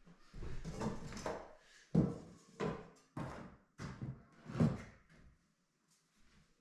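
Irregular knocks and scuffs, about six in the first five seconds, from someone handling tools and a plastic bucket of plasterboard filler. The sounds die away near the end.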